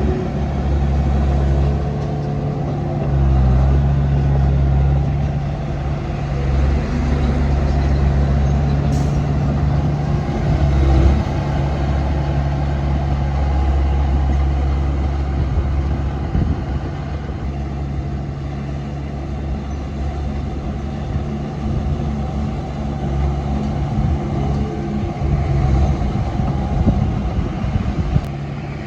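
Komatsu D31P crawler bulldozer's diesel engine running under load with a deep, steady drone that swells and eases as the machine works.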